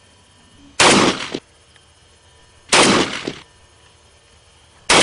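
Saiga 12 semi-automatic 12-gauge shotgun firing: two shots about two seconds apart, then a third near the end that starts a quick string of shots. It is being test-fired to tune its adjustable gas plug against failures to eject.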